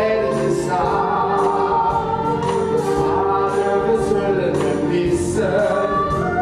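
A group of voices singing together in chorus, with long held notes.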